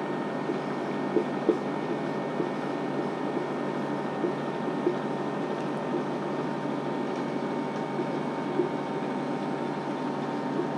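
Steady room hum, with a few faint short taps and strokes of a marker writing on a whiteboard.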